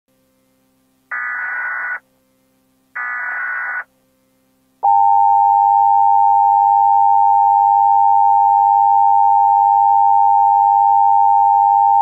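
Emergency Alert System tones. Two short, harsh SAME data bursts come about a second and three seconds in. From about five seconds in, the steady two-tone EAS attention signal is held unbroken.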